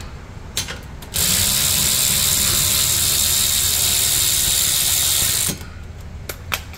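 A power ratchet runs steadily for about four seconds, starting about a second in, as it spins out a rear brake caliper bolt on a 3/8-inch socket extension. It then cuts off.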